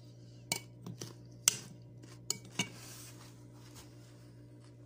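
A metal eating utensil clinking against a bowl of cucumber salad: about five sharp separate clinks over the first two and a half seconds, the loudest about a second and a half in, then only faint soft sounds.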